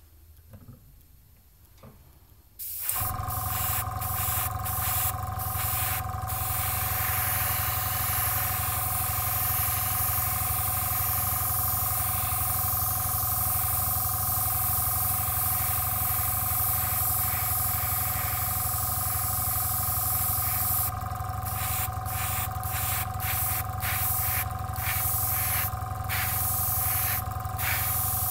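An airbrush compressor starts about two and a half seconds in and runs with a steady hum. Over it the airbrush hisses in spurts, cutting in and out many times as the trigger is pressed and released to spray paint, most often near the start and again toward the end.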